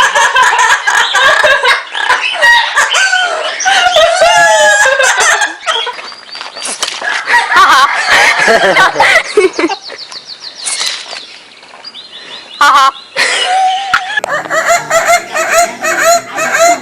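Parrots calling, a run of loud bird calls that bend up and down in pitch, changing from one bird and call to another several times.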